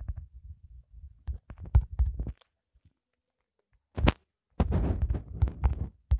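Handling noise from a phone being tapped while typing on its touchscreen keyboard: irregular dull thumps and rumbling, with a sharper knock about four seconds in and a denser patch of rubbing just after.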